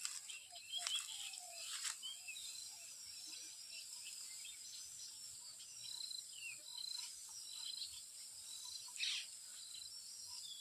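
Small birds chirping and twittering in short calls over a steady high-pitched insect drone, with three brief louder sounds: about a second in, near two seconds and about nine seconds in.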